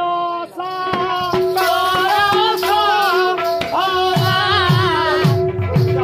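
Live Odia Karma folk song: a high voice sings a wavering, ornamented melody over a steady held drone note. A hand drum joins in with regular strokes from about four seconds in.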